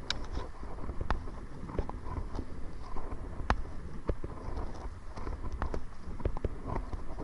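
Paddling a kayak into wind and chop: irregular sharp knocks and water slaps against the hull with the paddle strokes, over a steady low rumble of wind on the microphone.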